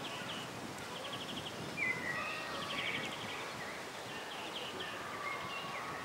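Outdoor ambience of small birds chirping and trilling, short rapid runs of high notes repeating every second or so over a steady background hiss, with one brief louder sound about two seconds in.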